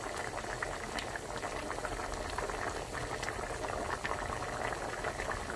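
Pot of beef and seaweed soup at a rolling boil: steady bubbling with many small pops.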